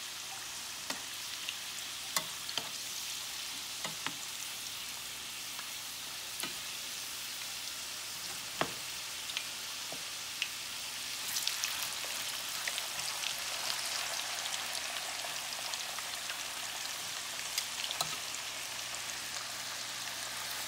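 Potato sticks deep-frying in hot oil in a saucepan: a steady sizzle with scattered sharp pops and crackles, growing busier about halfway through.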